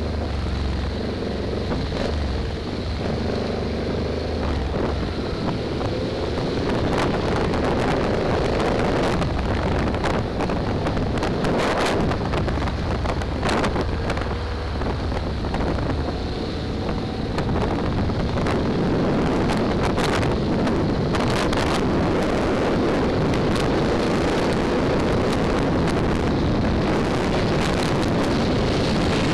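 Riding motorcycle heard from its own mounted camera: heavy wind noise buffeting the microphone over the bike's running engine, whose note rises and falls in the first half.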